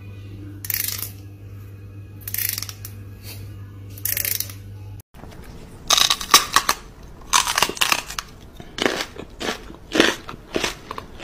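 A fingernail strummed across the teeth of a comb, three short rasps about a second and a half apart over a low steady hum. After a cut, a run of sharp crackly crunching noises in quick irregular clusters.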